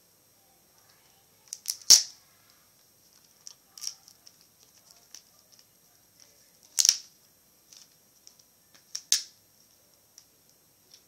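Sharp plastic clicks and snaps from laptop parts being pried and handled during disassembly, a few seconds apart, loudest about two seconds in and again near seven seconds, with faint small ticks between.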